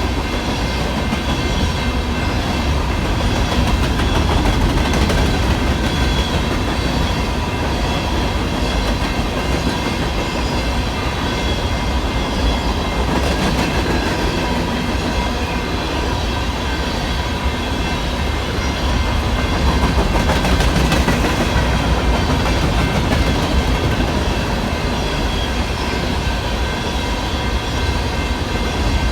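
Loaded BNSF coal train cars rolling steadily through a grade crossing, a low rumble with the clickety-clack of wheels over rail joints, while the crossing's General Signals electronic bell keeps ringing.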